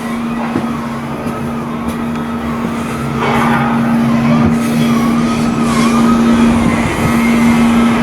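Steady machinery hum with one held low tone, and over it a higher whine that dips and rises about once a second; short bursts of hiss come in around the middle.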